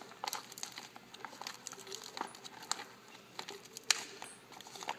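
Treadmill bolts and washers being pushed out of a plastic blister pack by thumb: irregular crinkling and sharp clicks of the plastic, with one louder snap about four seconds in.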